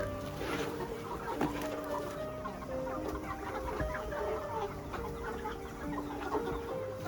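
Chickens clucking, over background music with a slow melody of held notes.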